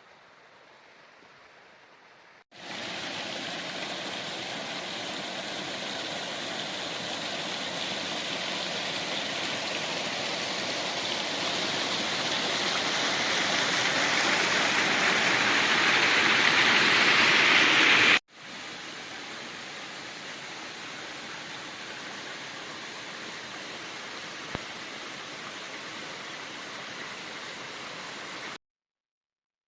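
Steady rush of water in a mountain gorge, from a waterfall or stream. It swells louder and louder for about fifteen seconds, breaks off sharply, then goes on more quietly and stops just before the end.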